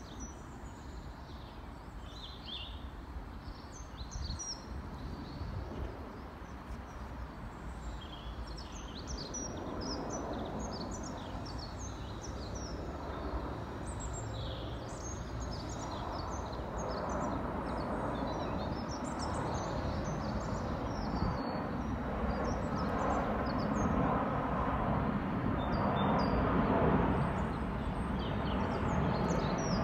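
Boeing 787-9 Dreamliner on approach passing overhead, its jet engine noise growing steadily louder through the clip. Small birds chirp throughout.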